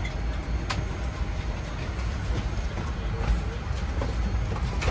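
Cabin ambience of a Boeing 787-10 airliner parked at the gate: a steady low rumble, with a sharp click about a second in and another near the end.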